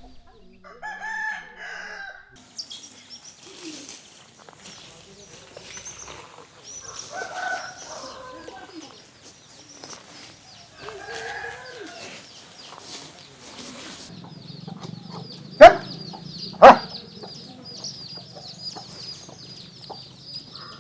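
Rooster crowing three times, each crow lasting about a second. Later a steady high chirring sets in, and two loud sharp knocks come about a second apart.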